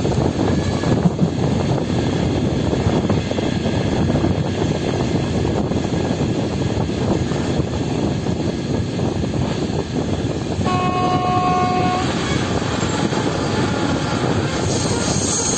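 Train running along the track with a steady rumble, and a short train horn blast of a little over a second about eleven seconds in.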